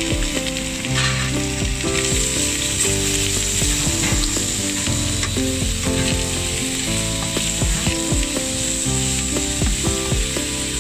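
Sliced vegetables frying with garlic and red chili in a nonstick pan: a steady sizzle, with a spatula stirring and scraping against the pan now and then. Soft background music with changing chords plays underneath.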